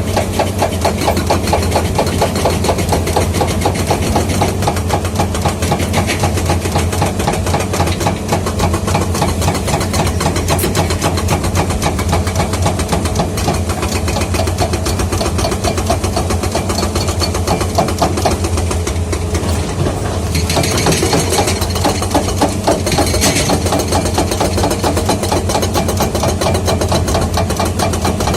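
Komatsu 210 excavator's diesel engine running steadily, with a fast, even knocking over it. A hiss comes in about twenty seconds in and lasts a few seconds.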